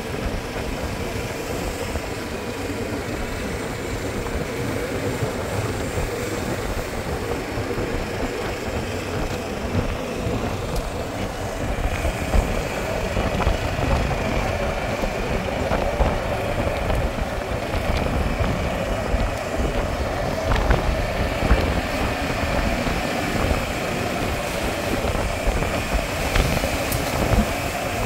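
Golf cart driving along a paved road: steady running and tyre noise with a faint steady whine, and wind gusting on the microphone in the open cab.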